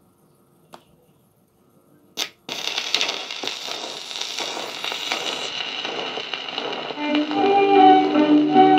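Stylus of a Philips record player set down on a 78 rpm shellac record with a sharp thump about two seconds in. Steady surface hiss and crackle follow, and the song's instrumental introduction comes in clearly about seven seconds in.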